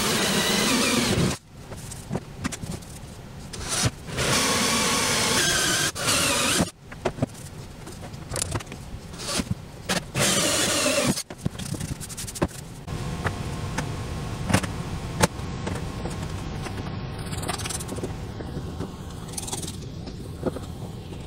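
Bosch cordless drill with a 1¼-inch hole saw cutting holes through a plastic ammo-can lid, in three bursts of a second or two each. Between and after the bursts come clicks and knocks of the plastic case being handled.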